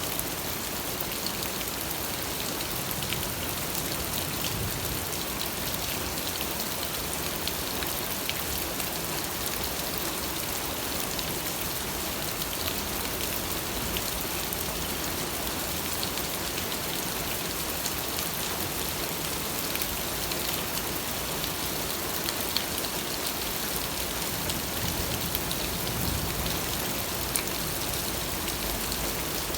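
Steady rain falling and pattering on surfaces, with a dense, even hiss and many small drop impacts.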